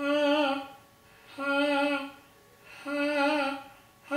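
Three short sung "ah" notes on the same high pitch, each held for about two thirds of a second with a slight vibrato, spaced about a second and a half apart: a light, relaxed vocal exercise sung from the top of the voice, heard over a video call.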